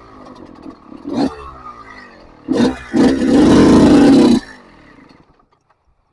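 Yamaha YZ250 two-stroke motocross engine running with throttle blips. About two and a half seconds in comes a short rev, then a loud rev held for about a second and a half. The sound then falls away to near silence.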